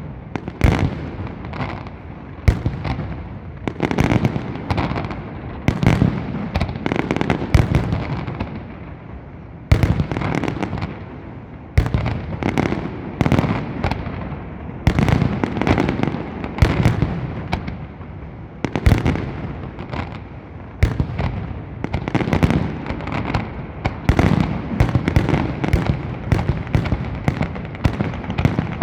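Fireworks display: a dense, continuous barrage of sharp bangs, several close together at times, with a low rumble between them.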